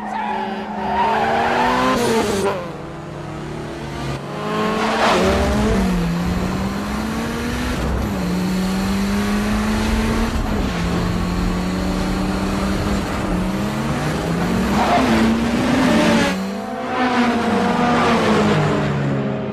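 Honda Civic engines revving hard, the pitch climbing and dropping back again and again as they shift up through the gears. Cars and a semi truck rush past loudly about four times.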